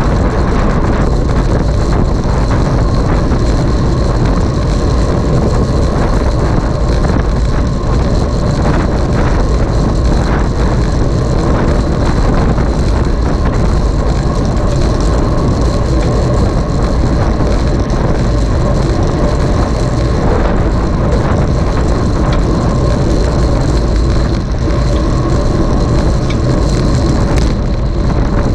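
Steady, loud wind rushing on the microphone of a camera moving at riding speed, heaviest in the low end, with a faint constant high whine.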